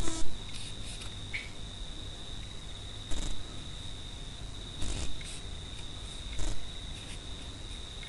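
Soft rustles and small clicks of a metal crochet hook pulling yarn through stitches, a few times, about three, five and six and a half seconds in, over a steady, high, cricket-like trill.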